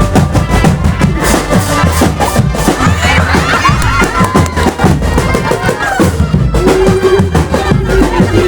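Loud music with a steady, fast drum beat and a melody over it.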